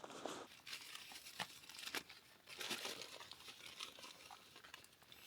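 A wrapper crinkling and rustling in irregular bursts of crackles as it is handled and opened.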